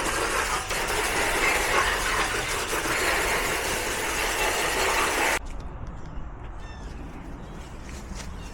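Steady rushing spray of water from a garden hose rinsing coil cleaner off an outdoor HVAC unit; it cuts off suddenly about five seconds in, leaving a quieter background with a few light ticks.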